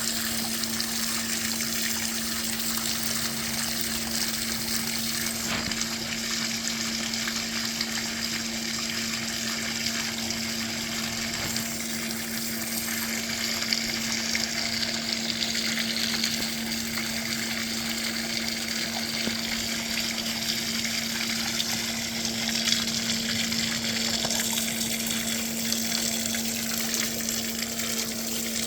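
Water rushing steadily out of a sump pump discharge line, with a steady low hum beneath it.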